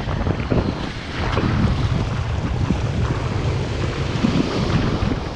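Wind buffeting the microphone in a rough, uneven rumble, over shallow surf washing and breaking on the beach.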